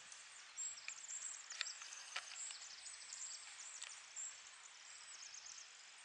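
Faint forest ambience with small birds chirping in quick high-pitched notes, and three soft clicks in the first couple of seconds.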